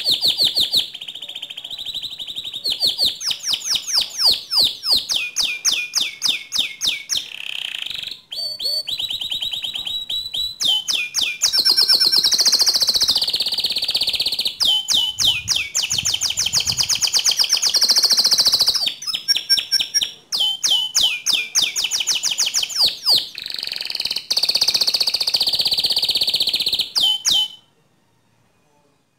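White domestic canary singing in full, fast song: long runs of rapid, high trills and rolling notes with only brief breaks. The song stops suddenly near the end.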